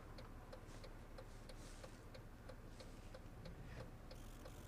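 Faint, regular ticking, about two to three ticks a second, over a low steady hum.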